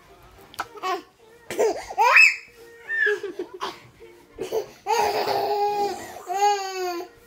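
Toddler laughing and squealing in short bouts, ending in a long high-pitched squeal near the end.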